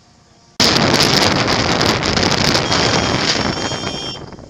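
Loud wind roar and buffeting on a helmet-mounted camera's microphone as the motorcycle pulls away, crackling and distorted. It starts abruptly about half a second in and fades out near the end.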